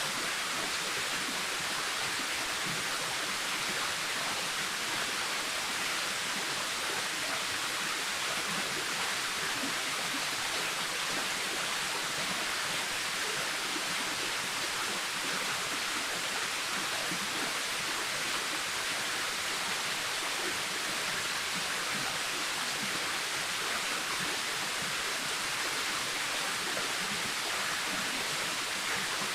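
Waterfall: water falling and splashing in a steady, even rush with a bright hiss and little low rumble.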